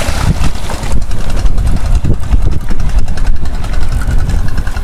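Boat engine idling with a steady low rumble, with a splash of water in the first second as a hooked fish thrashes at the surface beside the hull.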